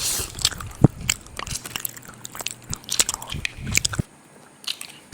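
A person eating takeaway mee pok noodles close to the microphone: irregular clicking and smacking chewing sounds, which stop about four seconds in.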